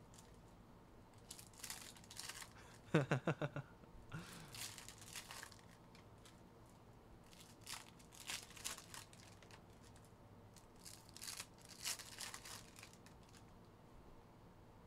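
Foil wrapper of an Optic basketball card pack crinkling and tearing as it is opened, and cards being handled and slid together, in several short bursts. A man's brief voice sound about three seconds in.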